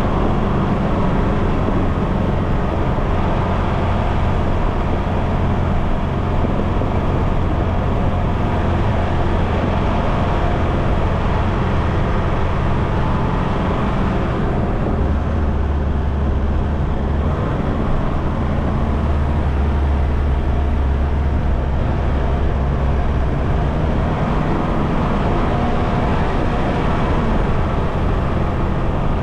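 Mitsubishi Challenger four-wheel drive's engine running steadily as it drives up a dirt trail, heard from the front of the vehicle with a constant low drone. The engine note drops lower for several seconds around the middle, then rises again.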